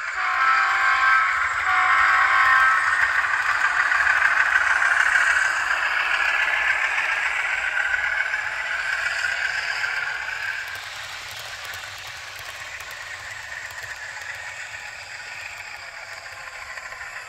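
HO-scale Rapido U25B model diesel locomotive with an onboard sound decoder, its horn sounding two short blasts through its small speaker, followed by its engine sound and the rattle of the train rolling over the track. The running sound is loudest for the first ten seconds or so, then eases to a lower steady level.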